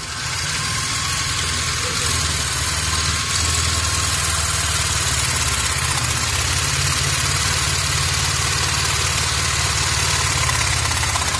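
Electric drill driving a homemade wooden reciprocating-saw mechanism, switching on suddenly and running steadily: a motor whine over a fast, even rattle of the blade and its linkage.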